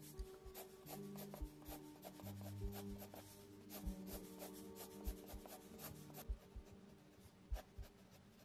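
Graphite mechanical pencil scratching on sketch paper in quick, short strokes while shading texture into the hair. Soft background music underneath, with held low notes and a steady low beat.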